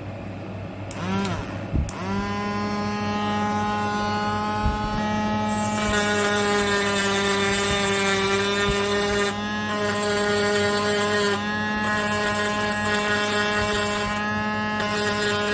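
A small electric motor spinning up with a brief rising whine, then running steadily at one pitch.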